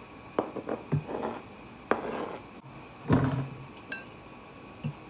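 Kitchenware handled while cooking: several light clinks and taps of utensils against a bowl in the first two seconds, then a heavier thud about three seconds in.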